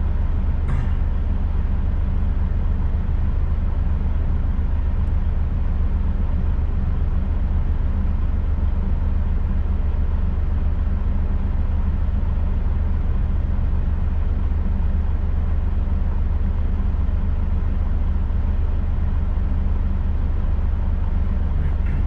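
Semi-truck's diesel engine running with a steady low drone, heard from inside the cab.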